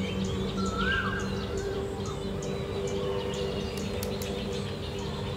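Wild birds calling in the open: short chirps, with one rising whistled note about a second in. Under them runs a steady low hum.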